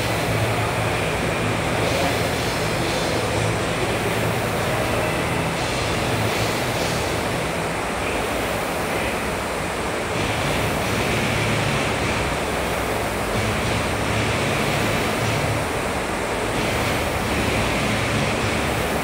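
Concept2 air rowing machine worked hard: its fan flywheel whooshes steadily, swelling with each pull stroke about every two seconds.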